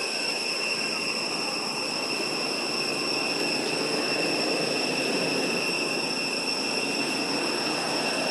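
Steady outdoor background: a constant high-pitched whine with overtones over a low, even rumble like distant traffic, with no distinct events.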